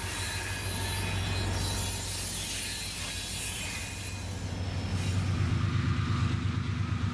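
Diesel locomotive engine running as a switching locomotive rolls past, with a thin squeal from its wheels. About five seconds in, the sound cuts to the louder, evenly pulsing run of an approaching BNSF freight train's diesel locomotives.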